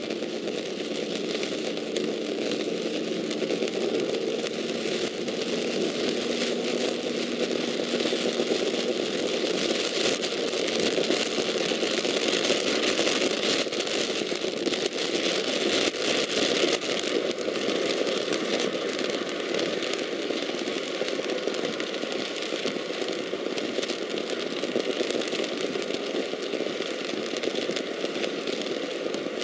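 Steady road noise inside a car moving along a wet highway in rain: tyres on the wet pavement and the engine running. A faint steady hum sits under it for the first several seconds.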